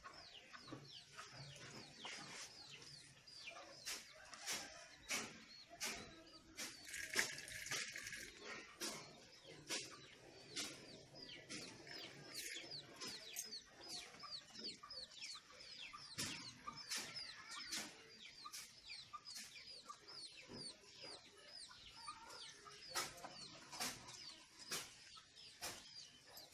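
Chickens clucking, with many short falling cheeps repeated throughout, over scattered sharp crackles and pops.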